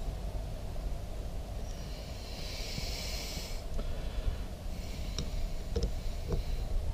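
A few faint clicks of a screwdriver turning out the cover screws of an outboard carburetor, over a steady low rumble and two stretches of hiss.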